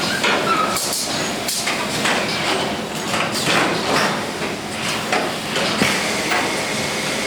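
Automatic multi-spot welding machine for car main bodies at work: irregular clanks and knocks from its clamps and jigs moving.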